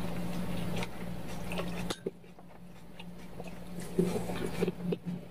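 Chopsticks stirring in a steel pot of cold soy-milk broth and lifting noodles out, with short wet clicks and drips about four to five seconds in, along with chewing. A steady low hum stops abruptly about two seconds in.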